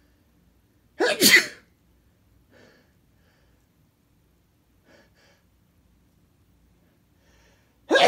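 A man sneezes once, loud and short, about a second in. A few faint sounds follow, and the next sneeze begins right at the end.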